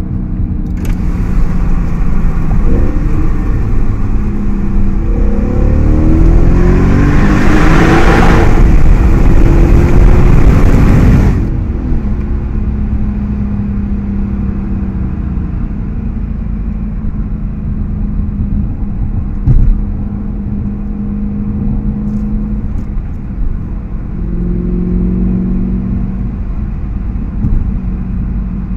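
Audi S5 with an AWE Tuning aftermarket exhaust accelerating, heard from inside the cabin: the engine note climbs in pitch and grows louder for about ten seconds, then drops off abruptly as the throttle is released. It settles into a steady cruising drone with road noise, with a single sharp knock partway through and a short rise in revs again near the end.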